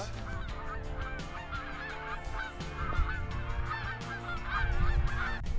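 A flock of wild geese calling, with many short honks overlapping at once.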